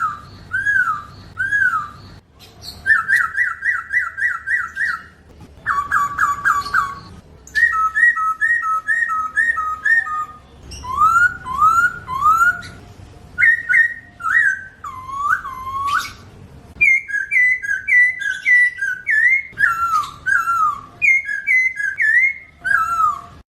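Poksay hongkong laughingthrush singing: loud, clear whistled phrases, each a quick run of three to six repeated up-and-down notes, switching to a new phrase every second or two with short pauses between.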